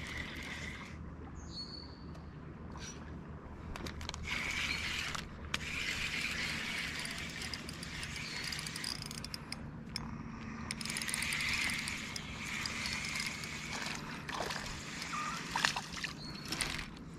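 Water sloshing and trickling from a kayak paddle dipping and dripping, in swells that come and go, with a few sharp knocks near the end.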